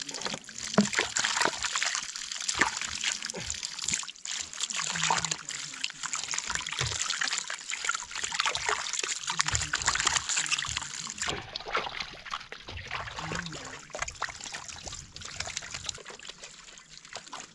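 Water splashing, sloshing and dripping in a metal basin as whole cabbage heads are rubbed and turned by hand to wash them, in a steady run of small quick splashes.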